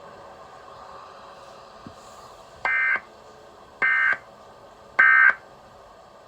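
Emergency Alert System end-of-message data bursts: three short, shrill digital SAME bursts about a second apart, the signal that closes the alert, over a faint hiss.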